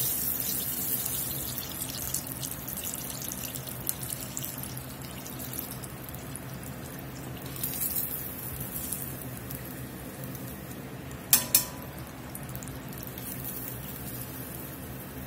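Battered chicken tenders deep-frying in hot oil: a steady sizzle with fine crackling. About eleven seconds in, two sharp clicks of the metal tongs stand out.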